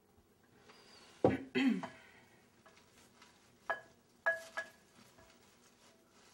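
Tableware clatter as salad servers work in a salad bowl: a loud knock and short scrape about a second in, then three sharp, ringing clinks around the four-second mark.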